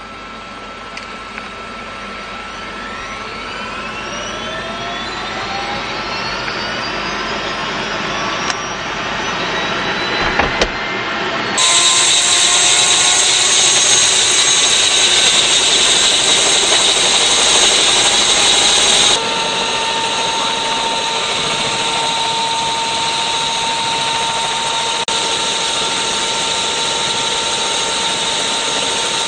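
Helicopter turbine engine starting up: a whine that rises steadily in pitch and loudness over about ten seconds, then runs at speed as a loud, steady high whine mixed with rotor noise. The sound jumps abruptly louder about eleven seconds in and changes again a little before twenty seconds.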